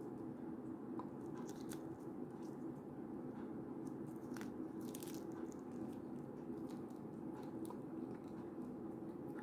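Scattered small crackles and clicks of plastic packaging and figure parts being handled, over a steady low hum.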